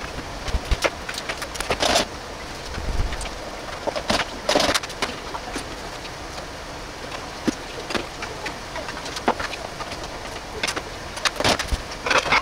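Pork belly and eggplant simmering in canned tomato sauce in a frying pan, with a pot of water boiling beside it, make a steady bubbling hiss. Scattered scrapes and taps of a spatula stirring the pan break through it every second or two.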